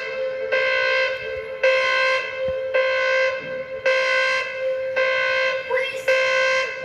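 Electronic keyboard playing the same held note over and over, about once a second, each note a steady buzzy horn-like tone.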